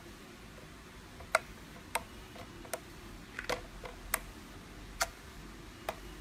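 Glossy slime popping and clicking as a finger pokes into it, forcing out trapped air: a series of sharp pops about one a second.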